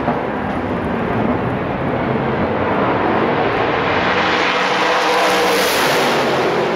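IMSA race car engines running at speed on the track, a loud continuous engine noise that grows to its brightest and loudest about five to six seconds in as a car comes nearest.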